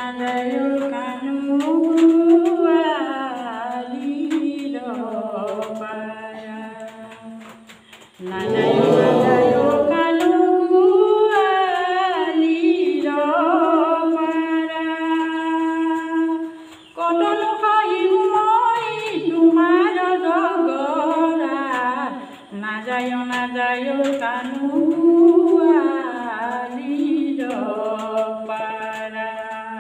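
A woman singing an Assamese folk song (lokageet) solo and unaccompanied, close into a handheld microphone, with long held, wavering notes in phrases broken by short pauses.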